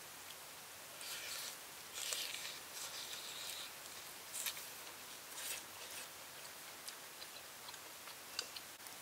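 Close-up eating sounds: crisp rustling and biting as a leaf-wrapped piece of smoked tuna is handled and eaten, then chewing, with a few light clicks near the end.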